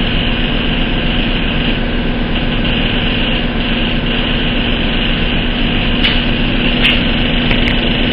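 Air compressor running steadily: a constant drone with a steady low hum. A few light clicks come about six to seven seconds in.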